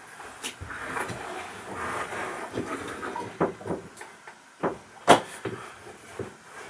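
Handling noises as a cardboard caliper box is set down and shifted on a plastic cutting mat: a rustle and a series of knocks and clicks, the sharpest knock about five seconds in.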